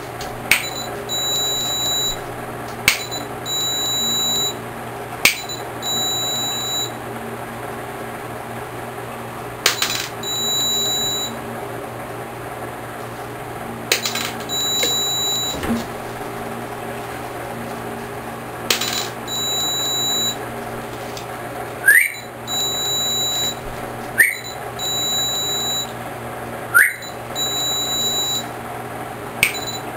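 Speedlight flash units on a sound-sensor trigger firing over and over: a sharp click every few seconds, each followed by about a second of high electronic beeping from the flashes as they recycle and signal ready. Near the end three of the clicks come with a short rising whine. A steady low hum runs underneath.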